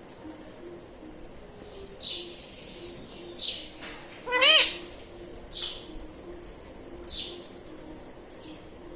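Pet ringneck parrot giving short, sharp high calls about every one and a half seconds, with one louder, longer call about four and a half seconds in that rises and falls in pitch.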